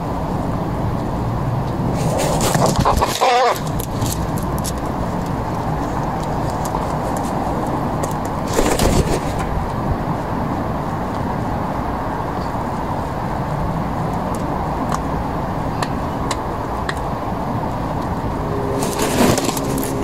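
Steady low rumble of road traffic. Brief louder sounds break through about two to three seconds in, again around nine seconds, and near the end.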